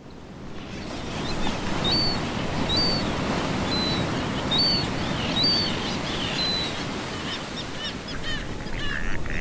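Ocean surf with a steady rush, fading in over the first second. From about two seconds in, a bird gives short high chirps roughly once a second, and near the end denser, harsher bird calls begin.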